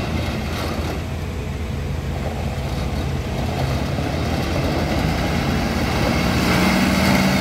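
The diesel engine of a 2016 New Holland Workmaster 60 loader tractor running steadily as the tractor drives across a dirt lot and turns. It grows louder near the end as the tractor comes closer.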